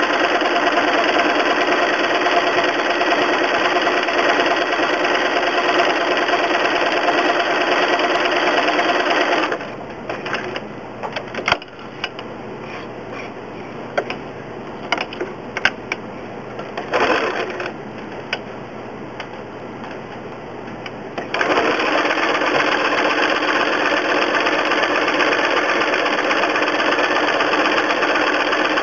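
Domestic sewing machine stitching steadily, free-motion straight stitch with a darning foot through fused appliqué fabric. It stops for about twelve seconds, leaving scattered small clicks and one brief run of stitches, then starts up again.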